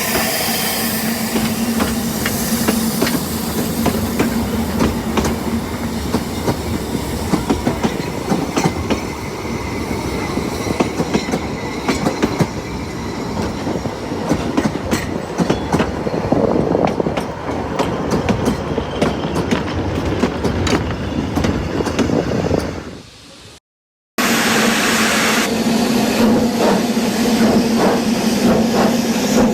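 Narrow-gauge train running, with the clickety-clack of the wheels over the rail joints, fading out about three quarters of the way through. After a brief silence, a second recording starts with a steady hiss over a low hum and further wheel clicks.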